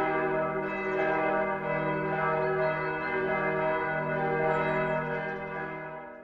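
Church bells ringing, with new strikes about a second in and again near the end, fading out in the last second.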